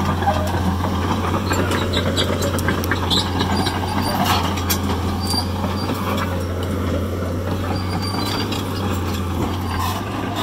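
Kobelco SK250LC tracked excavator travelling: its diesel engine runs with a steady low hum while the steel tracks give scattered clanks and brief squeaks as they roll.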